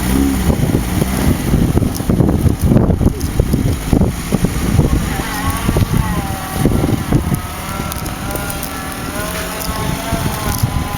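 Lada Niva driving off-road: rumbling and knocking jolts with wind buffeting the microphone, then from about halfway an engine or drivetrain whine that rises and falls in pitch.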